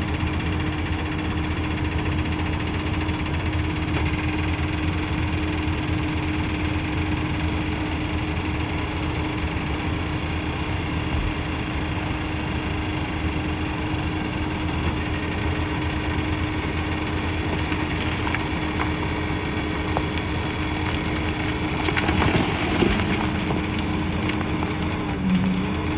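Heavy diesel engine of a construction machine running steadily with a constant whining tone. A few louder clanks come about 22 seconds in, and the tone dips and wavers near the end as the machine works.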